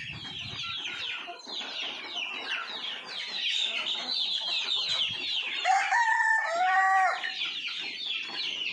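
A flock of chickens with many chicks peeping continuously in short, high, falling chirps, and a rooster crowing once about six seconds in, the loudest sound.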